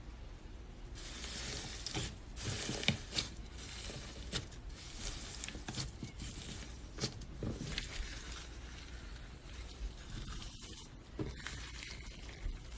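Slime being squished and stretched by hand: irregular wet crackles, clicks and pops over a soft hiss.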